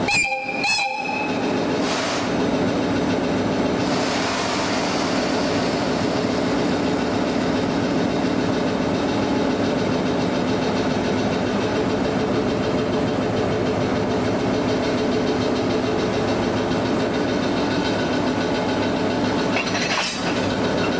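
DE10 diesel-hydraulic locomotive's engine running with a steady hum. A brief high tone sounds right at the start.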